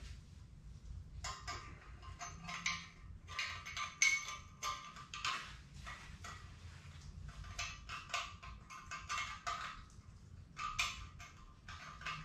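Irregular small metal clicks and scrapes of hand work inside a 4G63 engine block: a gloved hand fitting a balance shaft bearing into its bore by hand before it is driven in.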